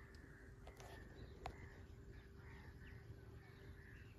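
Near silence: faint outdoor ambience with faint chirps repeating and a single small click about a second and a half in.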